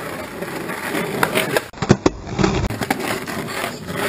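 Skateboard wheels rolling on rough concrete, with several sharp clacks of the board hitting the ground from about the middle onward.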